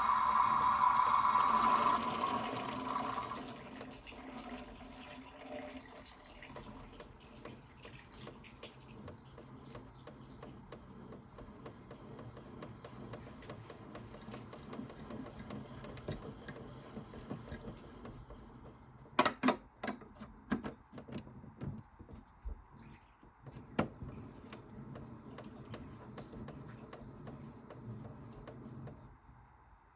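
Toy washing machine running with water sounds: loud for the first two to three seconds with a steady high tone, then a quieter steady wash-like noise. A cluster of sharp clicks comes about two-thirds of the way in.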